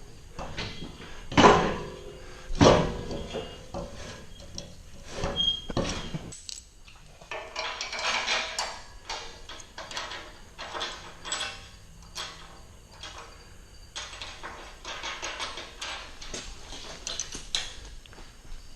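Scattered metal clanks, knocks and rattles of steel parts and tools being handled during fabrication work, with two loud knocks in the first three seconds.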